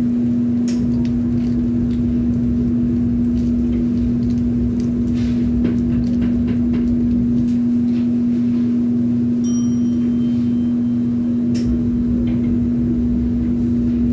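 Steady low machine hum of running commercial kitchen equipment, with scattered light clicks and clinks of utensils and containers. A short electronic beep sounds about two-thirds of the way in.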